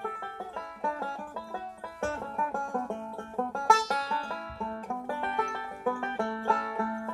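Banjo played solo: a quick, unbroken run of picked notes over a lower ringing note, with one sharper accent about halfway through.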